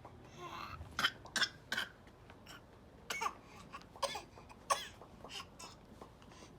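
A baby fake-coughing: a string of short, sharp little coughs from about a second in, some with a bit of voice in them, coming in small groups.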